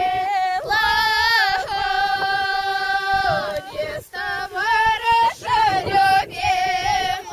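A group of women and girls singing a traditional Podlasie village song in loud, high, open voices. The notes are long and held, and the phrases end with a downward slide.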